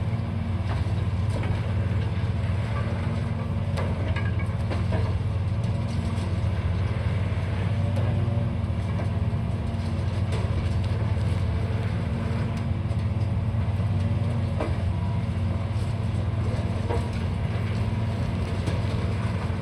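Heavy diesel demolition machinery running steadily with a constant low drone, with scattered knocks and clatter of debris.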